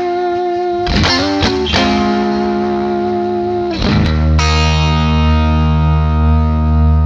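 Electric guitar played through a Warm Audio Pedall76 1176-style compressor pedal: chords ring out long and even, restruck about one and two seconds in, then a low chord struck about four seconds in sustains steadily.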